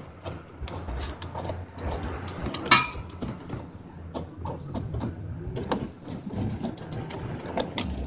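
Handling noise as a thin brake cable for a washing machine's spin-dryer motor is fed into a plastic sleeve: scattered small clicks and rustles, with one sharper, briefly ringing click about three seconds in.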